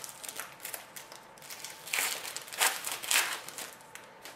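Trading cards rustling and sliding against each other as a pack is flipped through by hand, with three louder swishes about two to three seconds in.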